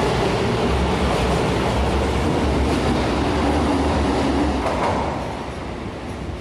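Osaka subway 22 series train running out of the station with a steady rumble of running noise, dropping away about five seconds in as it leaves.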